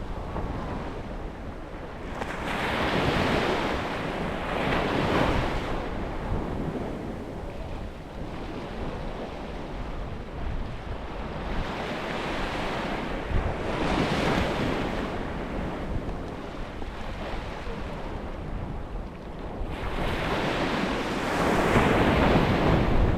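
Sea waves washing onto a beach: a steady surf hiss that swells and eases three times as waves break and draw back, over a constant low rumble.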